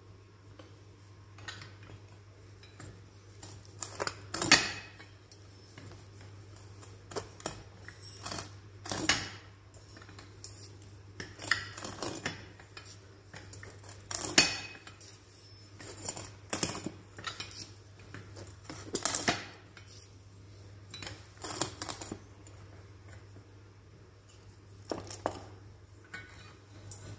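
Handle-less stock knife, its hooked end pivoting in an eyebolt on an anvil, chopping down through dry wood in about a dozen separate strokes, some in quick pairs, each a sharp knock with a clatter of metal.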